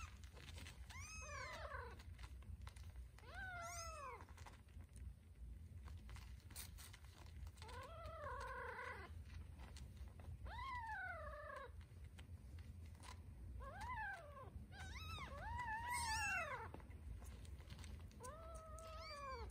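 Newborn Scottish Fold kittens crying while they jostle for their mother's nipples: about eight short, high-pitched cries, each rising then falling in pitch, with several in quick succession about three-quarters of the way through.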